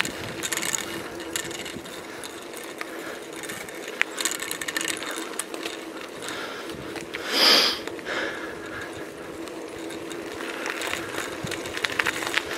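Bicycle ridden on a tarmac lane: rapid mechanical ticking and rattling from the freewheel and frame over the road surface, over a steady low hum. A brief loud rushing noise comes about halfway through.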